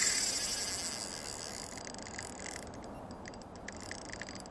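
Fishing reel drag clicking as a hooked salmon pulls line off: a fast, high buzz of clicks that slows into separate, irregular clicks about two and a half seconds in.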